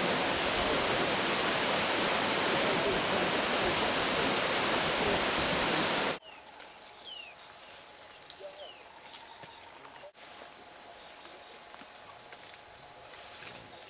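Waterfall rushing loudly for about six seconds, then an abrupt cut to much quieter rainforest ambience: a steady high-pitched insect drone with a few short bird chirps.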